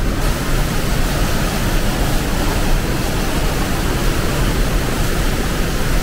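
The Rhine Falls crashing down at close range: a steady, loud rushing noise with a deep rumble underneath.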